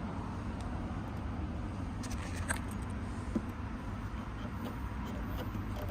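Makita AC700 5 L air compressor running with a steady low hum, with a few faint clicks.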